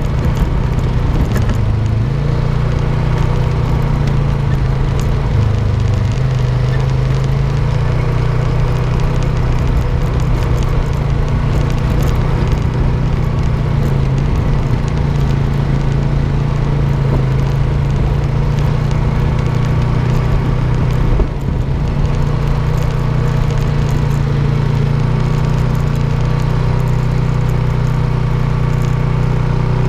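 ATV engine running with a steady low drone while riding over a rough dirt track, with rushing noise over it on the mounted camera. The sound dips briefly about two-thirds of the way through.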